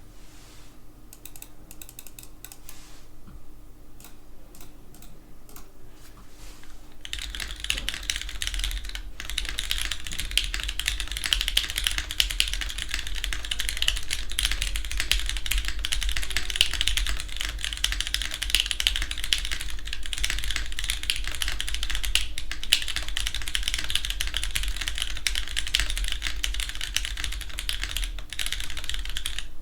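Mechanical keyboard typing on an aluminum-plate Eros TKL with lubed vintage Cherry MX Black linear switches and GMK keycaps. Scattered single keystrokes for the first several seconds, then steady fast typing from about seven seconds in.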